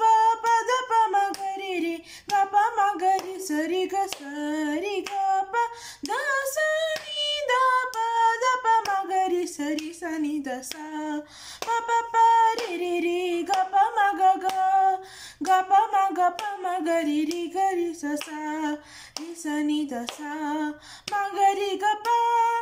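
A teenage girl singing a Carnatic swarajati in Bilahari raga, solo and unaccompanied, in phrases of gliding, wavering notes with short breaks between them.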